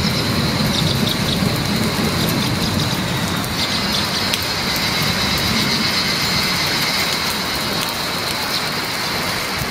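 Heavy monsoon rain pouring down as a steady hiss, with a low rumble under it for the first few seconds that then fades.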